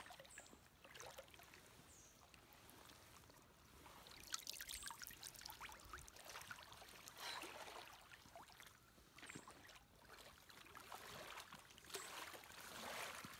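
Faint sloshing and swishing of water as someone in waders wades through waist-deep flooded woods, in irregular splashes that grow a little louder near the end.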